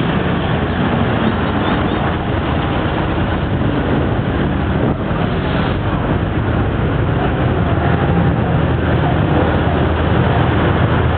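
Steady street traffic noise, with the engines of nearby cars and a bus running, mixed with wind rushing over the microphone of a camera carried on a moving bicycle.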